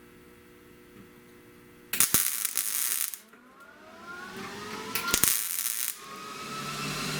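Workshop power tool noise: two short, loud hissing bursts about three seconds apart, with a rising whine and light mechanical rattling between them, and a steady hum coming in near the end.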